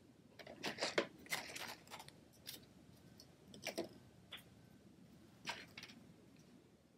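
Faint, scattered clicks and rustles of small craft handling: tiny adhesive faceted gem dots being picked off their sheet with a pointed pick tool. The strongest clicks come about a second in and again near the middle.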